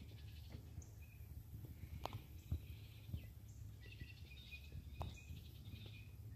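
Faint lakeside ambience: birds chirping in the distance over a steady low rumble, with a few soft taps and small splashes from a hand holding a bass in the water beside a kayak while the fish recovers before release.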